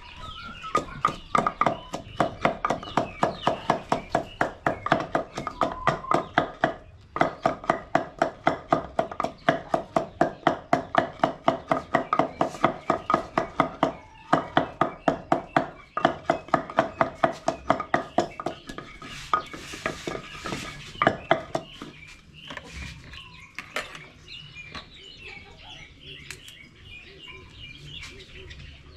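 Wooden pestle pounding leaves in a large wooden mortar, a fast steady beat of about three to four strokes a second, each knock with a ringing tone. The beat pauses briefly twice, stops about 22 seconds in, and fainter, scattered knocks follow.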